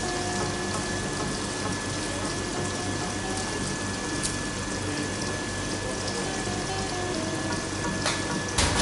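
Steady rushing kitchen background noise under a faint melody, with a short sharp knock near the end.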